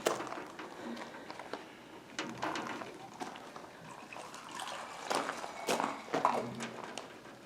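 Scattered light clinks and knocks of metal engine parts being handled and fitted, with faint muttered voice now and then.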